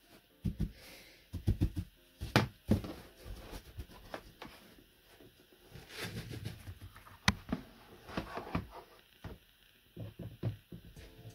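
Paintbrush sweeping dry worm castings across a plastic tub, with irregular knocks and taps as the tubs are handled, and a short hiss of castings poured from one plastic tub into another about six seconds in.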